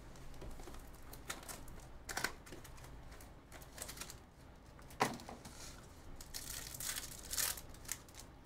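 Cardboard hobby box being opened and foil trading-card packs crinkling and tearing open, with a few sharp snaps and taps, the loudest about five seconds in, then a stretch of wrapper crinkling.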